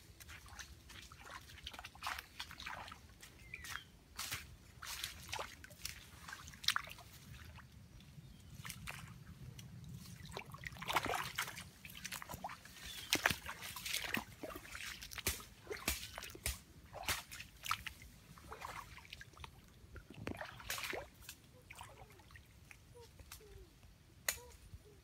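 Footsteps crunching and crackling irregularly through dry leaves and twigs, then feet wading and sloshing in shallow muddy water.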